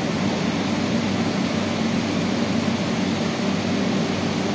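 Steady mechanical drone: a low hum under an even hiss, holding a constant level with no starts or stops.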